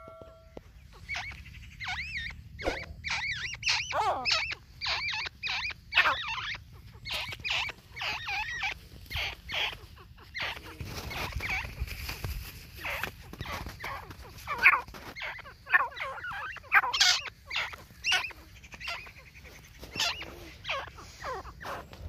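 A white-plumaged grey francolin (white teetar) calling: a long run of short, quick notes that bend up and down in pitch, several a second. A low rumble rises under the calls about halfway through.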